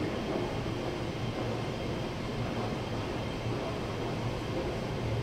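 Steady low rumble and hum of an enclosed metro platform, with no single event standing out.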